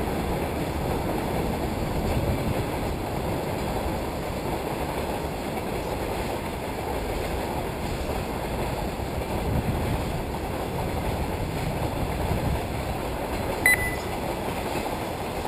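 Wind rumbling and buffeting on the microphone as a low, unsteady noise, with one brief high beep near the end.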